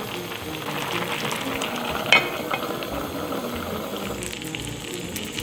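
A pot of pork-belly kimchi stew bubbling steadily at the boil. A single short clink comes about two seconds in.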